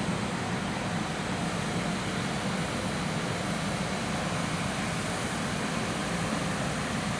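Bombardier Traxx class 185 electric locomotive with its cooling blowers running: a steady, even whir over a low hum.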